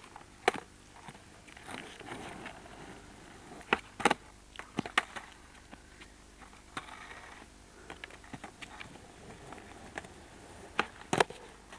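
Skateboard deck and wheels knocking on asphalt: sharp clacks about half a second in, several between about three and five seconds, and two close together near the end, with faint wheel rolling between them.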